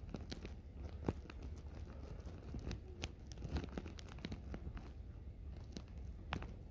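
Faint, irregular scratches and sharp clicks of grit and small stones being disturbed, over a steady low rumble.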